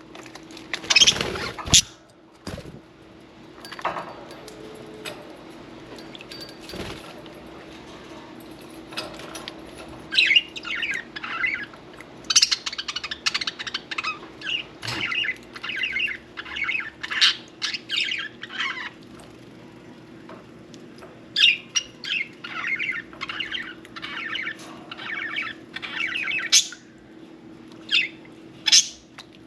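Pet budgerigars chattering and warbling in quick bursts of short chirps, which grow dense from about a third of the way in. A brief loud rush of noise comes near the start, and a faint steady hum runs underneath.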